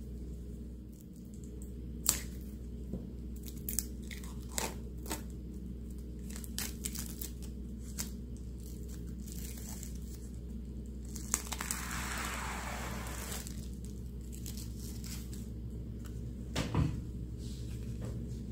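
Clear plastic wrap being torn and crinkled off a deck of oracle cards: scattered sharp crackles, with a longer tearing rustle about twelve seconds in, over a steady low hum.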